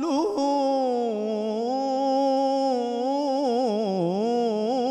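A solo male voice singing Egyptian ibtihal (Islamic devotional chant), unaccompanied, holding one long melismatic note. It is steady at first, then breaks into rapid wavering ornaments and sinks lower near the end.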